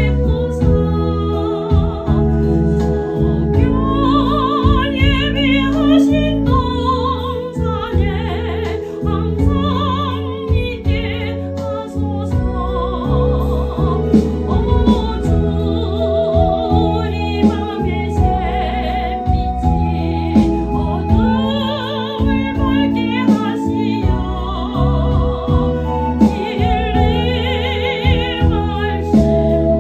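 A woman singing a Korean gospel song in a classical, operatic style with wide vibrato, over a sustained instrumental accompaniment with a steady bass.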